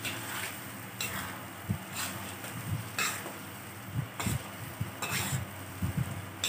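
Metal ladle stirring and scraping through a blended onion, ginger and lemongrass paste frying in a metal wok, about one scrape a second, with a few knocks against the pan over a steady sizzle.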